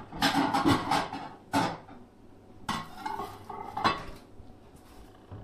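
Plates clinking and clattering as one is lifted from a stack in a kitchen cupboard, followed by three separate knocks spread over the next few seconds.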